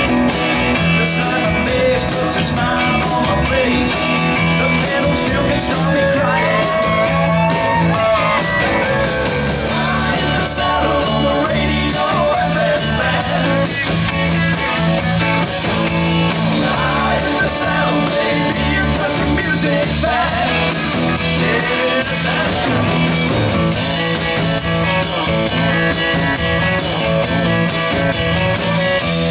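Live country rock band playing an instrumental break: electric lead guitar over strummed acoustic guitar, bass and drums with a steady beat.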